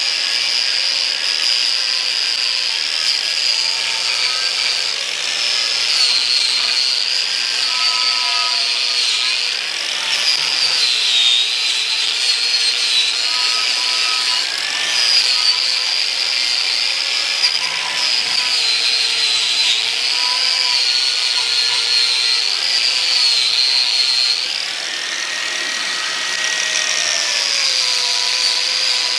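Handheld electric angle grinder running against a welded metal frame. Its high whine keeps dipping in pitch and recovering as it is pressed into the metal, and it eases briefly near the end.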